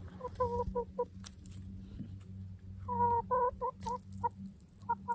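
A hen clucking in short runs of low clucks: a few near the start, a longer run of about seven around three seconds in, and a few more near the end.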